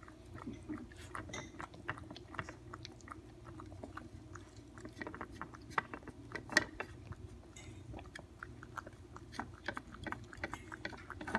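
Toy poodle lapping milk from a bowl: a steady run of quick laps, several a second, with two louder ones about six seconds in.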